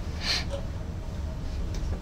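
NS ICM electric multiple unit running along the track, a steady low rumble heard from the driver's cab, with a short hiss about a quarter second in.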